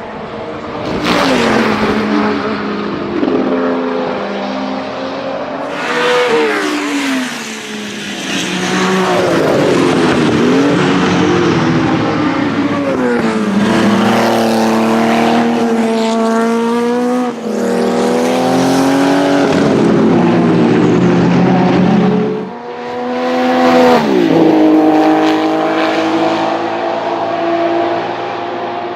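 Porsche 935 race car's turbocharged flat-six engine running hard through the gears. Its pitch climbs and then drops sharply at each change, about five times, with the sharpest drop a little after twenty-two seconds in.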